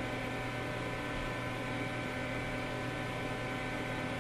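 Steady background hum and hiss of the recording, with several faint steady tones over it: room tone with electrical hum.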